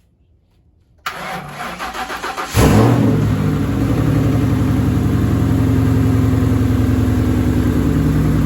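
Car engine cranked by its starter for about a second and a half, catching with a loud rev and settling into a steady idle on a cold start.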